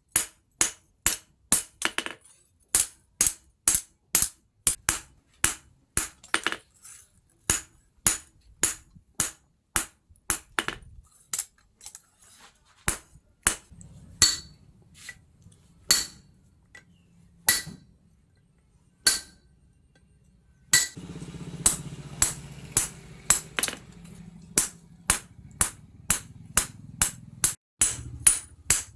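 Hand hammer striking steel on an anvil: a run of sharp ringing blows about two a second that thins out and pauses around the middle, then picks up again over a low steady hum.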